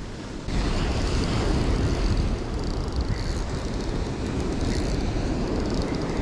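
Wind buffeting the microphone over the steady wash of breaking surf, with a brief drop in level at the very start.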